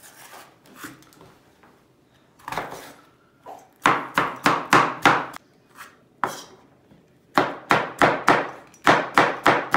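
Kitchen knife chopping peppers on a wooden cutting board, each stroke a sharp knock of the blade on the board. A few light cuts come first; from about four seconds in come quick chops at about three a second, a short pause, then another run of chops near the end.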